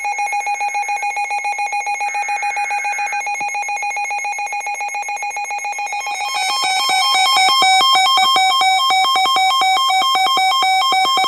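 Weather radio alert alarms sounding for a severe thunderstorm warning: a rapidly pulsing electronic tone, joined about six seconds in by a second, louder alarm whose pitch steps back and forth.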